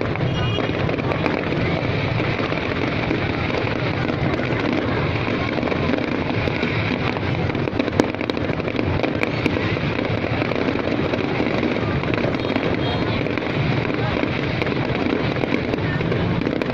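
Fireworks going off over a steady din of crowd voices, with one sharp bang about eight seconds in.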